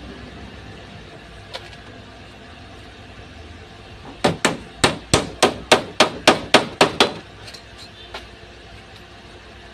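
A quick run of about a dozen sharp hammer taps on wood, about four a second, followed by a few faint taps.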